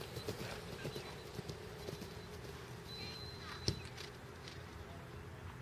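Event horse galloping on turf over a cross-country course, a quick run of hoofbeats in the first couple of seconds that then fades. A single sharp knock, the loudest sound, comes a little over halfway through, with a brief thin whistle-like tone just before it.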